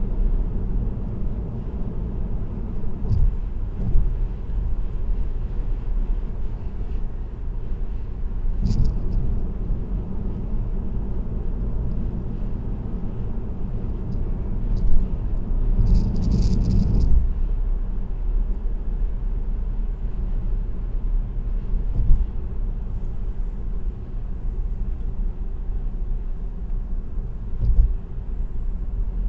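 Steady low tyre and road rumble heard from inside a car cruising on an expressway, with a few short knocks or rattles from bumps in the road and a louder stretch about sixteen seconds in.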